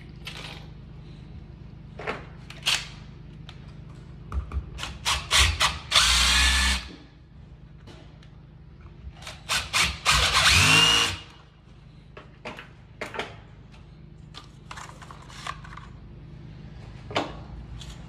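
Cordless drill driving in screws in two runs of about a second each, about six and ten seconds in, the motor's pitch dropping as the second one seats. Light clicks and rattles of handling come before and between the runs.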